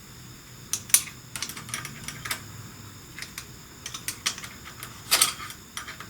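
Hand tool working a bolt loose on a motorcycle's shift linkage: irregular sharp metal clicks, in small clusters, the loudest cluster about five seconds in.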